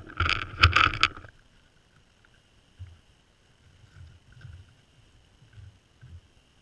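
A whitetail buck's muzzle pressed up against the GoPro, with about a second of loud, rapid scraping and snuffling right at the microphone. After that come a few soft, low thuds of its hooves as it steps away.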